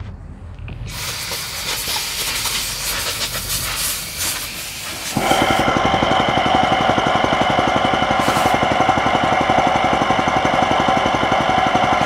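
A loud hiss from about a second in, then, about five seconds in, a machine starts up with a fast, even rattle and a steady whine that runs on.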